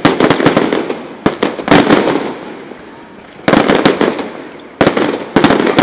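Fireworks display: volleys of sharp crackling bangs come in rapid clusters, with a lull of about a second midway before two more volleys.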